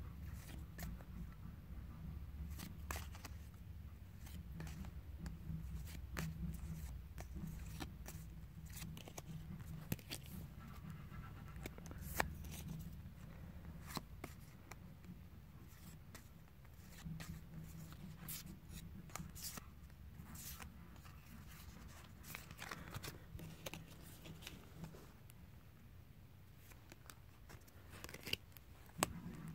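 Battle Spirits trading cards being flipped through by hand: soft slides of card over card with scattered sharp clicks, over a faint steady low hum.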